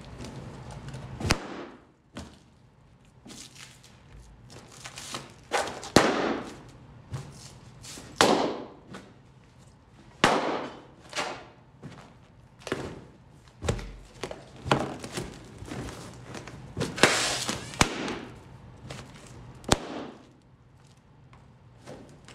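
Latex balloons bursting one after another as they are stomped underfoot: about a dozen loud, sharp pops at uneven intervals, mixed with the thuds of boots on a wooden floor.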